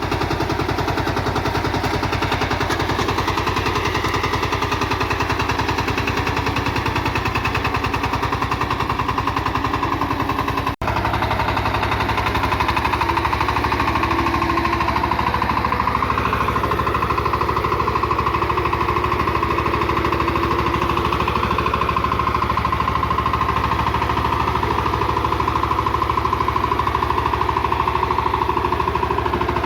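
VST Shakti 130 DI power tiller's single-cylinder diesel engine running steadily with a rapid, even thumping while tilling.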